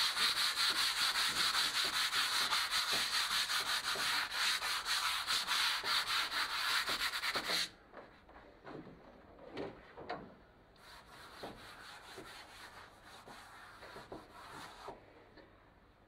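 Hand sanding of a board painted in black eggshell with a sanding pad: quick, even back-and-forth scratchy strokes, several a second, that stop abruptly about seven and a half seconds in. Then come quieter, irregular soft rubbing strokes as the sanding dust is wiped off with a tack rag.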